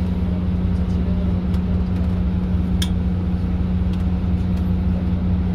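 Airport apron shuttle bus running, heard from inside the cabin: a steady low rumble with a constant hum.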